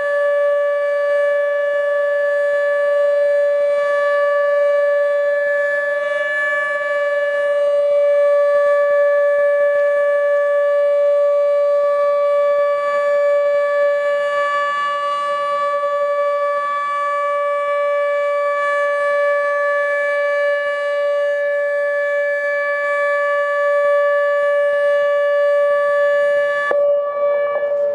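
ATI HPSS32 electronic outdoor warning siren sounding a steady tone during a test, rich in overtones. Near the end the upper overtones cut out and the tone begins to drop in pitch as the siren winds down.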